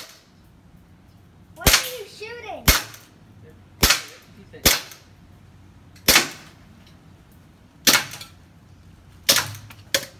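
A toy gun being fired repeatedly: eight sharp, loud cracks at uneven intervals of about one to two seconds.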